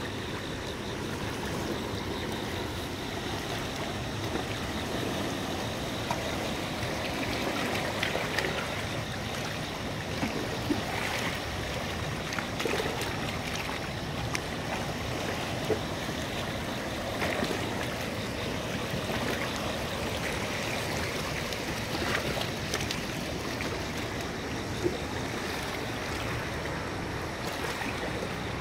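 Steady rush of water at a rocky bank, with a few brief splashes and knocks scattered through it.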